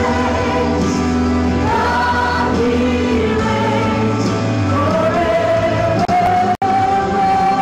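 Two women singing a gospel praise song into microphones over a band accompaniment, with long held notes. The sound cuts out for an instant near the end.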